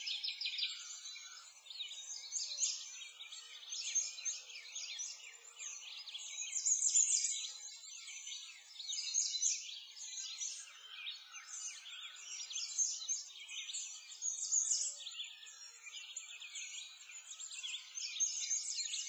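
Dense chorus of many small birds chirping and twittering all at once, without a pause, with the busiest moments about seven seconds in.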